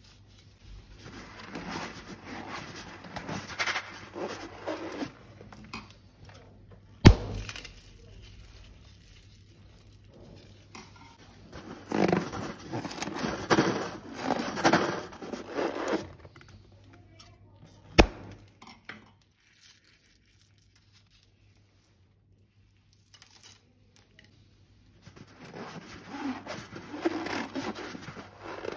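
Hands handling balloons and slime: several bursts of rustling handling noise, with a sharp tap about seven seconds in and another about eighteen seconds in, followed by a quiet gap of several seconds.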